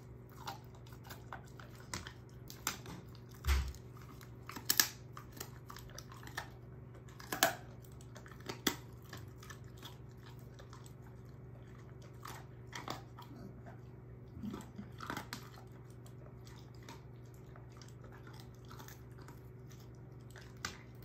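A German shorthaired pointer crunching and chewing a dehydrated pork neck bone: irregular sharp crunches, thickest in the first nine seconds and thinning out after that. There is one dull thump about three and a half seconds in.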